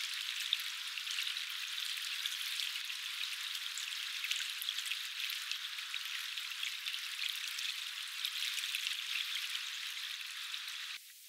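Steady crackling hiss of water, thick with fine ticks like drops or a trickle. It cuts off suddenly near the end.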